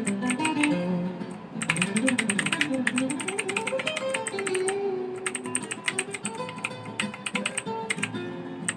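Fast typing on a Rakk ILIS mechanical keyboard, dense runs of key clicks with a short lull about five seconds in, over acoustic guitar background music.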